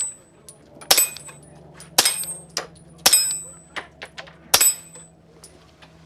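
Four suppressed shots from a SIG P226 Legion RX pistol with SIG's modular suppressor, roughly a second apart with a longer pause before the last. Each shot is followed by a ringing metallic clang as the rounds strike a steel plate target.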